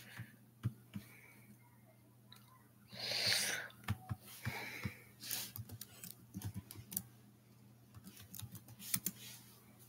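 Soft, irregular clicks and taps of typing on a computer keyboard, with a breathy hiss about three seconds in and a faint steady hum underneath.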